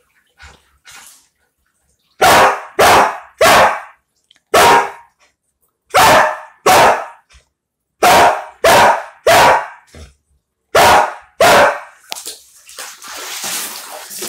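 Samoyed barking: about eleven loud, sharp barks in quick groups of two or three. Near the end, water splashing as the dog moves about in the hot tub.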